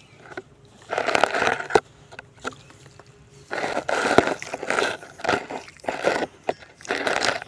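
Grainy cement sand being crushed and crumbling, in irregular bursts of crunching: one about a second in, then several in quick succession over the second half.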